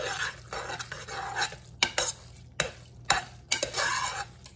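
A metal spoon stirring cooked elbow macaroni and cut-up butter in a pot: repeated stirring strokes, about one every three-quarters of a second, with several sharp clicks of the spoon against the side of the pot.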